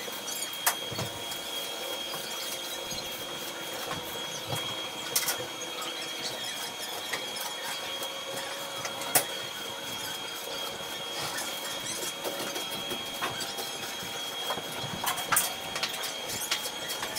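Electric arc welding on 2x2 galvanized steel tube studs: a continuous crackling arc under a steady high whine, with a few sharp clicks, the sharpest about nine seconds in.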